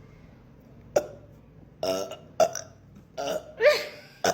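A person burping in a string of short, pitched burps, about six of them, the loudest near the end. These are forced burps made by swallowing air.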